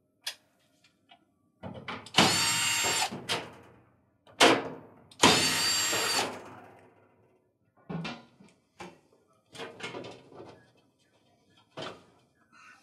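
Cordless drill/driver with a 1/4-inch hex nut driver running in two steady bursts of about a second and a half each, backing out the two screws on the back of a washer's control panel. A few light clicks and knocks follow as the driver is handled and set down.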